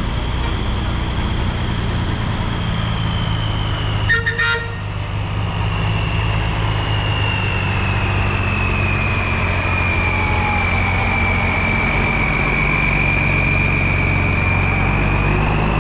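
Parade vehicles passing: a heavy engine running steadily underneath, with a short horn toot about four seconds in. Over it a long, high siren tone slowly falls in pitch and rises again near the end.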